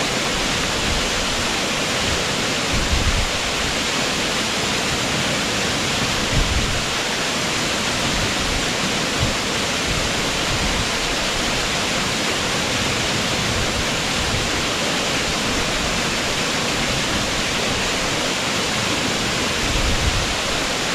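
Steady, unbroken rush of Taru Falls' male falls (雄滝), a waterfall pouring down, heard from in front.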